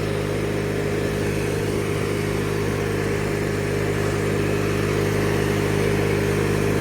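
A 1997 MTD Yard Machines riding lawnmower's engine running loud at a steady, even speed.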